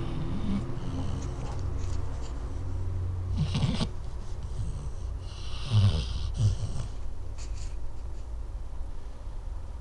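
A sleeping dog snoring: a few irregular rough snores and hissing breaths, the loudest about three and a half seconds in and around six seconds, over a steady low hum.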